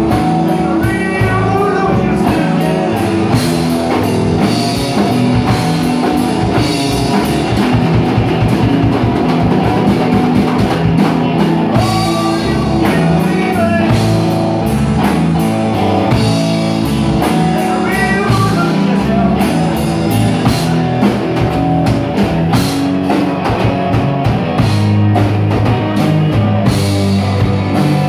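Live band playing a blues-rock song: electric guitar over bass and a drum kit keeping a steady beat.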